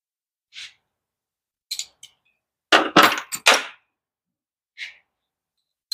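Hand tools being handled in a workshop: a few short clicks and clanks, with a louder cluster of knocks about three seconds in.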